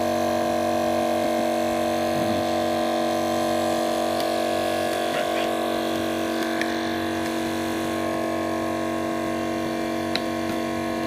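Small electric air pump running with a steady hum as it pressurizes a tennis-ball re-pressurizing canister toward 30 psi.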